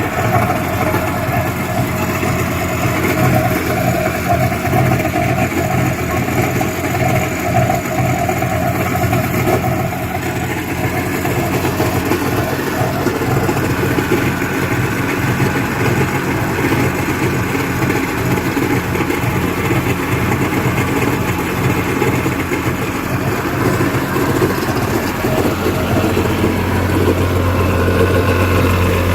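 Yamaha WaveRunner two-stroke engine with a freshly rebuilt top end (new piston and rings) running steadily as it warms up, running pretty good.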